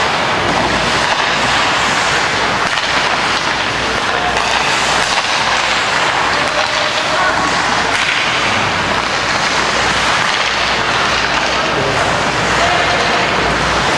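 Steady, noisy din of a live ice hockey game in a rink, with faint distant voices mixed in.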